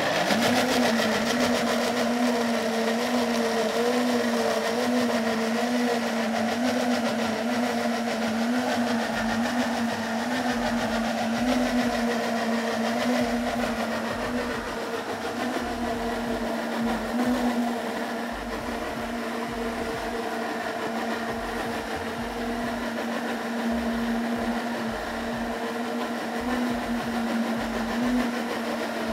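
Cuisinart blender running at speed 6, blending hydrated soybeans with an equal amount of water: a steady motor whir with a slight waver in pitch.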